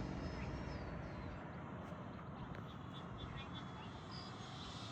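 Faint outdoor field ambience: the distant hiss of an electric ducted-fan RC jet, dipping lower in the middle, with a few short high chirps about halfway through.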